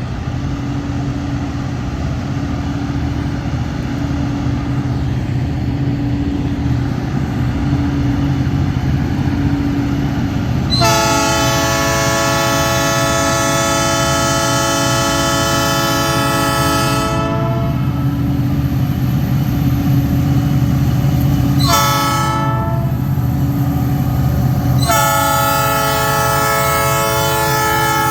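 EMD diesel freight locomotive running under power with a steady low rumble. Its air horn sounds a long blast about eleven seconds in, a short blast a few seconds later, and another long blast near the end.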